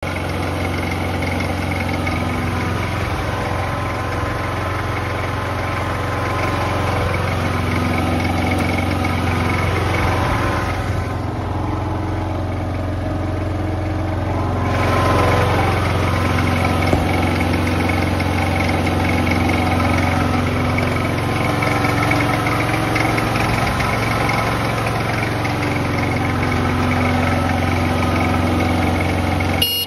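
A riding rice transplanter's engine idling, a steady, even drone.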